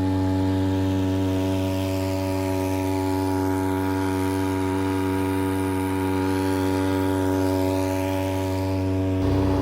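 Small 2 hp air-cooled two-stroke outboard motor, a converted whipper-snipper engine, running steadily at one pitch under way. About nine seconds in, a deeper rumble joins.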